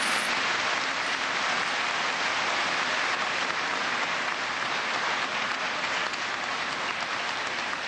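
A large congregation applauding, a steady wash of clapping that holds throughout.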